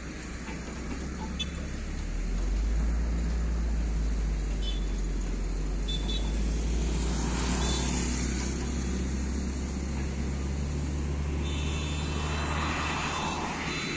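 Deep, steady rumble of heavy diesel road vehicles, with road traffic noise. The rumble swells about two seconds in and eases off near the end.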